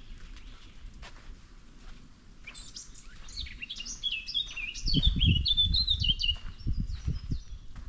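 A songbird sings one long, rapid, varied song of high notes stepping up and down, starting about two and a half seconds in. Low thumping rumbles come alongside it in the second half and are the loudest sound, with fainter scattered clicks before the song.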